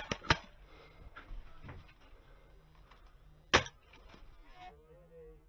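Sharp metallic clicks and clacks from a JG VSR Bar 10 bolt-action spring airsoft rifle. There are two close together at the start, a single loud one about three and a half seconds in, and a few lighter rattling clicks just after it.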